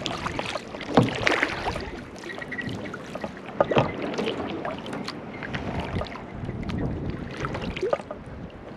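Kayak paddling: the paddle blades splash and swish in the water, with irregular knocks and clicks throughout.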